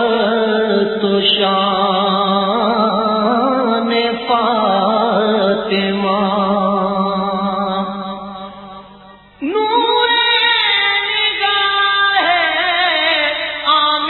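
Background music: a devotional song sending blessings on the Prophet Muhammad (salawat), sung with vibrato over a held low note. It fades down shortly after the middle, and a new sung passage starts abruptly about nine and a half seconds in.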